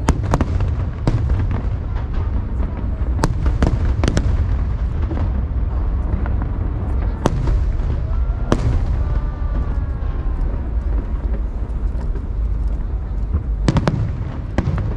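Aerial fireworks bursting: sharp bangs at irregular intervals, some in quick pairs, over a steady low rumble.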